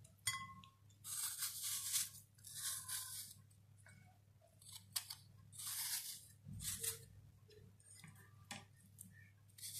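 Kitchen knife peeling and cutting a fresh apple by hand: a faint series of short scraping, crunching strokes with pauses between them.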